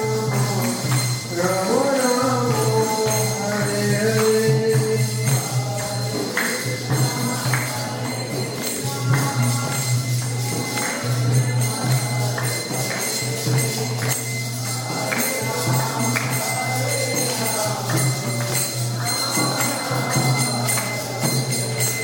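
Devotional music: singing over jingling, tambourine-like percussion and a steady low drone.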